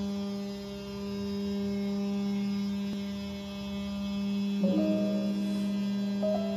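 Makera Carvera Air desktop CNC milling a circular pocket in aluminium plate with a single-flute carbide end mill spinning at 12,000 RPM: a steady, even hum-like tone from the spindle and cutter, with higher overtones above it.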